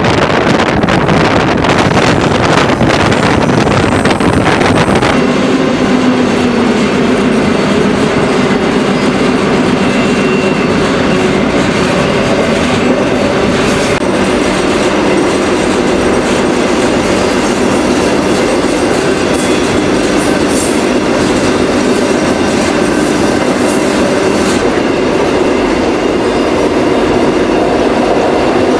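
Freight train cars rolling at speed, heard from aboard: a loud, steady noise of steel wheels on rail. For the first few seconds it is full of rapid rattling clicks. About five seconds in it changes abruptly to a smoother rolling sound with a low humming ring.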